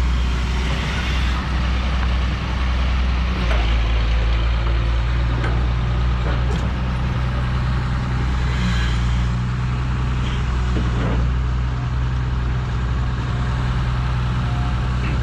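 Diesel engines of backhoes running steadily in a low drone, with a few scattered knocks and clanks from the digging work.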